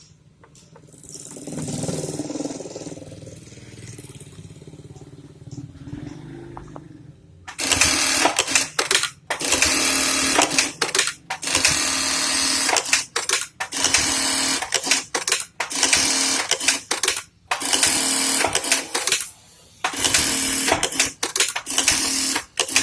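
Juki DDL-8100B-7 single-needle lockstitch industrial sewing machine stitching in loud runs of one to two seconds, stopping briefly between them, after about seven seconds of quieter handling sounds.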